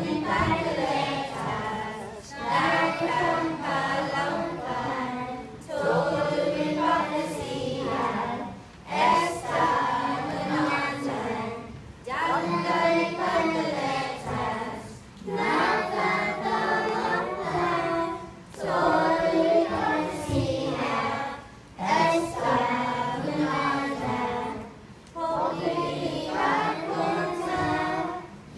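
Children's choir singing a song in short phrases, with brief pauses between them.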